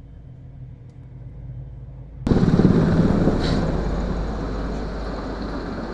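A faint low hum, then about two seconds in a sudden jump to the loud noise of a Black Hawk helicopter hovering low overhead, heard from inside a car through its dashcam.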